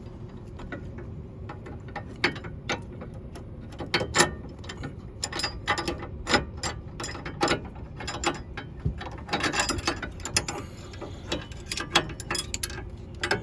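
Hand ratchet clicking in irregular quick runs, starting about two seconds in, as the nut on the bottom stud of a car's sway bar link is worked loose with the stud held from behind by an 8 mm hex bit.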